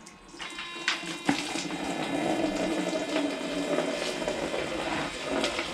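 Green engine coolant gushing and splashing out of the Toyota FJ40 Land Cruiser's cooling system as the leaking pipe is pulled off to drain it. It starts about half a second in, with a couple of sharp knocks early on, then pours steadily.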